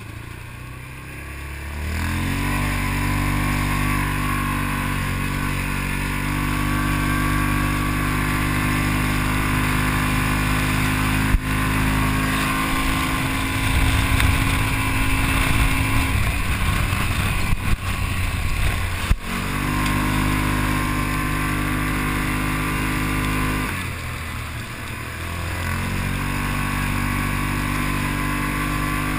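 Off-road vehicle engine rising from a low speed about two seconds in, then running steadily. It eases off and picks up again late on, with a couple of sharp knocks along the way.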